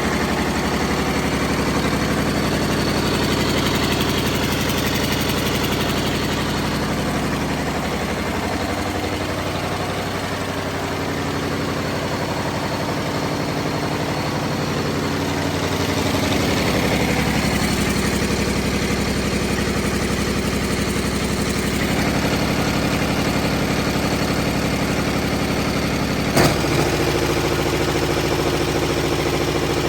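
MTU 8V2000 V8 diesel engine running, its note dropping for a while from about 8 s and picking up again around 16 s, with one sharp knock about 26 s in. The engine is running with a bad turbocharger.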